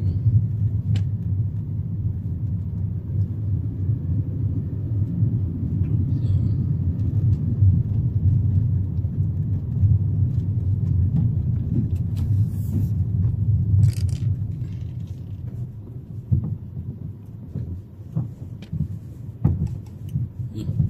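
Low steady rumble of a car's engine and tyres heard from inside the cabin while driving slowly, turning quieter for the last few seconds, with a few light knocks.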